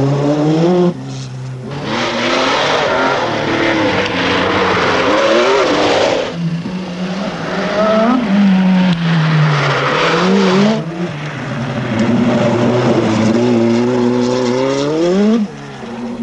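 Rally car engines at full throttle. The pitch climbs and drops back again and again as the cars change gear, running several cars one after another.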